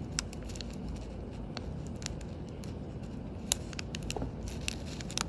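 Small sharp clicks and taps of watchmaker's tools working on a wristwatch to lift off its hands, with one louder click about three and a half seconds in, over a steady low background hum.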